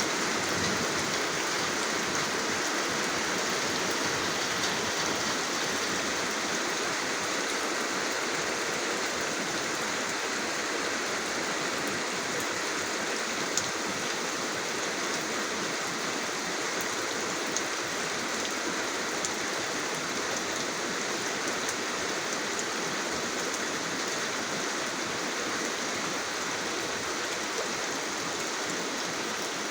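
Steady rain falling: an even hiss of water, with a few sharper single drop ticks here and there.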